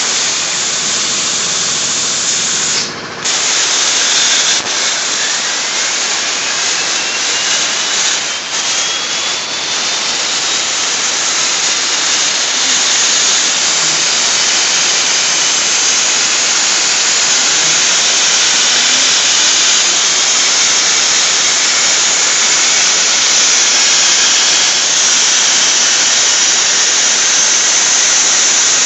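CNC plasma torch hissing steadily as it cuts sheet metal on a gantry table. The hiss drops out briefly about three seconds in, and a faint rising whistle follows a few seconds later.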